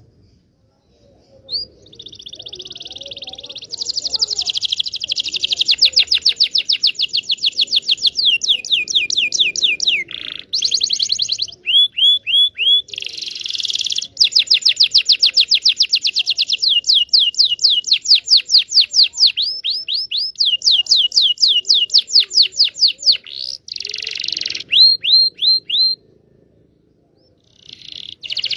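Domestic canary singing long rolling trills: fast runs of the same short sweeping note repeated many times a second, switching to a new note type every few seconds, with brief pauses between some phrases.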